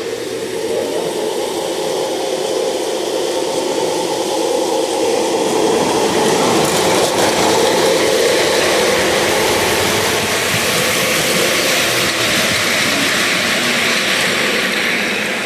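Lionel O-gauge model train running close past, its wheels and motor making a steady rolling rumble on the metal track. It builds to its loudest about halfway through and eases off near the end.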